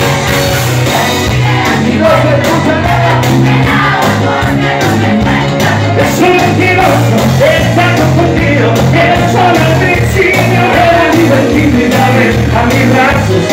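Amplified live band playing a song: a lead singer and backing vocals over a steady low bass line and percussion.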